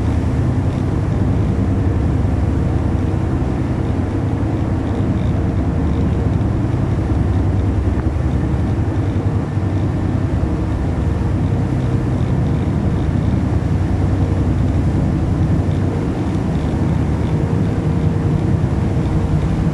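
Passenger ferry underway: the engines' steady low hum under a constant rush of wind and water.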